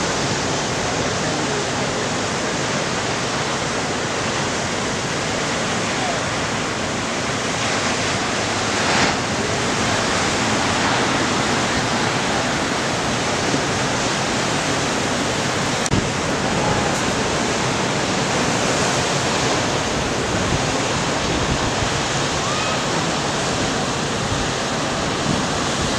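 Ocean surf breaking and washing at a point break, a steady rushing noise of waves.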